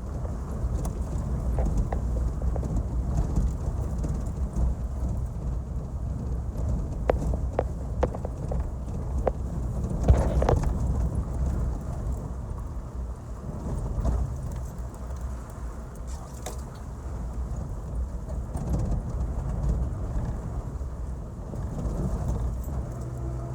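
Four-wheel-drive vehicle driving over a rough unpaved mountain forest road: a steady low rumble of engine and tyres, with scattered knocks and rattles as it bumps along, the loudest jolt about ten seconds in.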